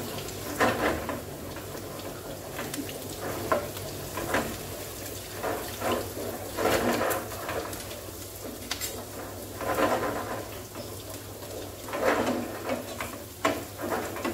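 A wooden spatula stirring and scraping onion and garlic frying in a nonstick pan, in irregular strokes over a soft sizzle. A low steady hum sits underneath.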